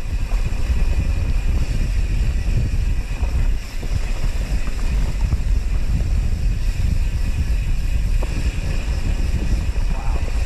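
Wind buffeting the action camera's microphone while riding a mountain bike along a trail, a heavy low rumble that starts suddenly and runs on steadily.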